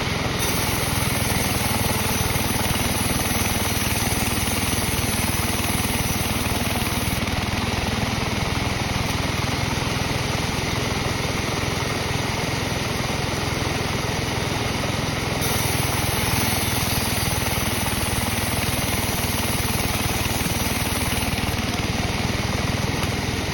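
Sawmill machinery running steadily, an engine-driven saw used for sawing teak into beams. A high hiss comes in twice for several seconds over the steady running.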